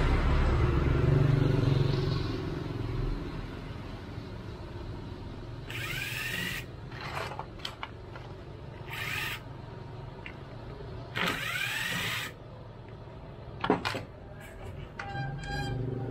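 Electric drill spinning up in three short bursts, each with a rising whine, while held against the spindle of a Dongcheng angle grinder's gear head. A low hum comes before the bursts, and a sharp knock and some light clatter follow them.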